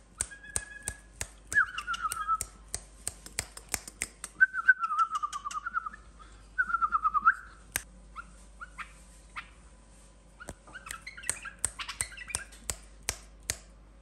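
White-eared bulbul singing short warbled phrases, each a quick wavering trill. There are four phrases in the first half, the longest over a second, then scattered chirps later. Many sharp clicks and taps run all through.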